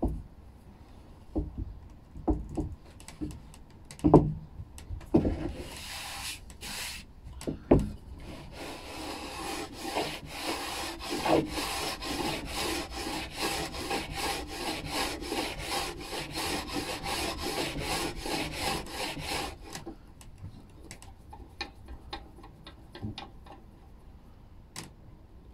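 Old cast-iron bench plane shearing thin shavings off a pine board, pushed at an angle across the grain so the blade slices rather than tears the fibres. It goes in quick, even strokes of about three a second for some twelve seconds, after a few separate knocks as plane and board are set in place.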